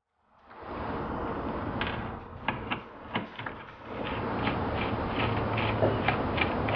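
Small nuts being backed off the studs of a gauge cluster's circuit board with a hand tool: scattered metallic clicks, then from about halfway a steady run of clicks, two to three a second.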